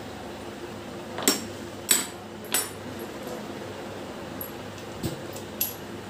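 Metal parts of a Hero Glamour motorcycle engine clinking against each other and the crankcase as they are handled during assembly. Three sharp clinks about half a second apart come just over a second in, then three fainter ones near the end.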